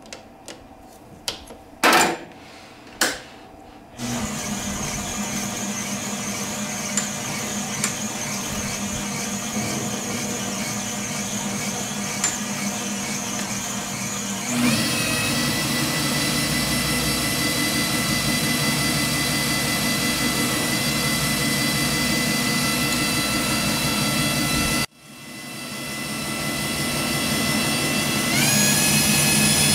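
Metal lathe: a few clicks and two sharp knocks as the aluminium part is clamped in the chuck, then the lathe runs with a steady whine. The whine steps up in pitch about halfway through. Near the end it cuts out and spins back up with rising pitch.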